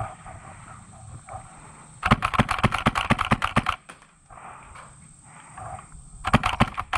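Two bursts of rapid airsoft fire, sharp cracks at about seven a second: the first lasts about a second and a half, starting some two seconds in, and the second starts near the end.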